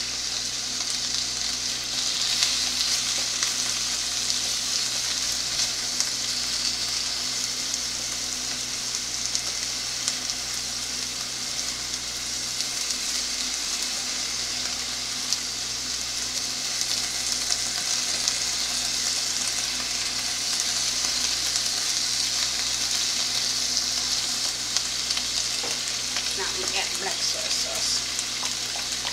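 Sliced beef, peppers and onion sizzling in a frying pan with a steady hiss, while a plastic spatula stirs and turns them with frequent small scrapes and clicks against the pan.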